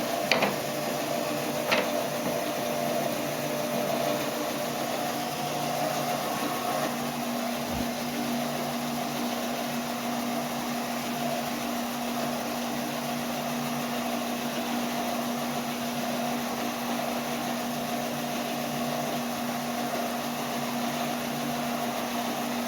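Heat gun running steadily with a constant motor hum and rush of air, used to heat and scorch paint off wood. Two short clicks come in the first two seconds.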